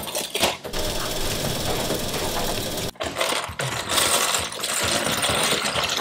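Dry penne pasta rattling in its cardboard box as the box is opened and tipped, the hard pieces clattering against each other and the cardboard. The clatter breaks off sharply about three seconds in, then goes on.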